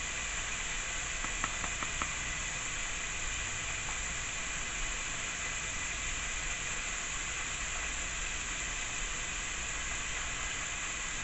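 Buffalo wing sauce simmering in a pan on the stove, giving a steady sizzling hiss, with a few faint clicks about one to two seconds in.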